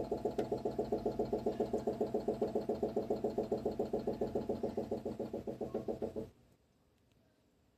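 Storage water heater making an abnormal noise: a rapid, pulsing hum of about seven pulses a second that stops suddenly about six seconds in.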